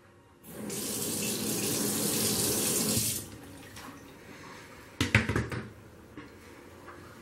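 Sauber Brilliance steam cleaner's jet spraying for about three seconds, then a quick cluster of knocks about five seconds in.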